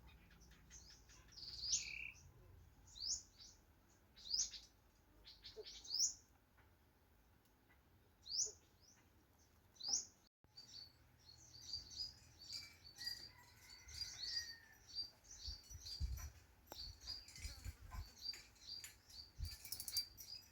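Birds chirping: single high, down-slurred chirps every second or two, then after about ten seconds a quick run of many short high notes. A few low thumps come near the end.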